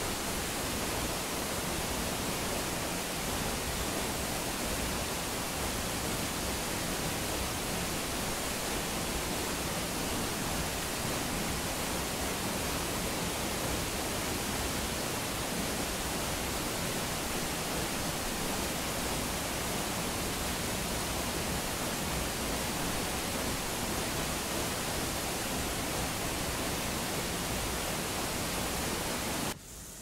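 Stäubifall, a powerful 100-metre single-drop waterfall: a steady, even rush of falling water that drops away abruptly near the end.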